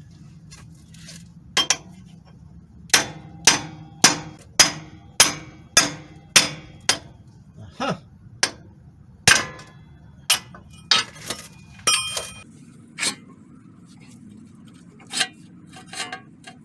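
Repeated sharp metal-on-metal strikes of a pry fork being worked against a front-wheel-drive CV axle to pop it out of its mounting: a quick run of about nine even strikes, then slower, irregular ones.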